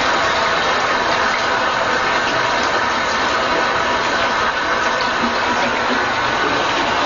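Steady rush of running water, unbroken and even.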